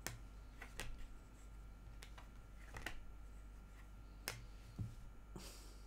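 Tarot cards being handled: scattered light clicks as cards are flicked and pulled from the deck, and a short swish of cards sliding near the end.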